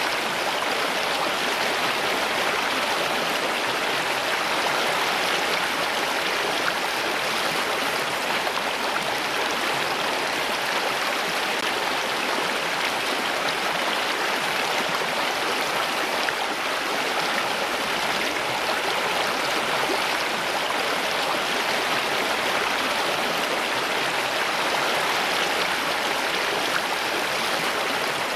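Flowing water running steadily with an even rushing hiss and no pauses or changes.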